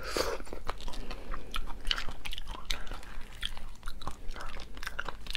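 A person chewing raw slipper lobster meat, with many short crackles and clicks as the hard shell is pulled apart by hand.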